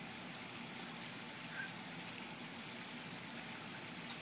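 Steady hiss of background noise, with a faint click near the end.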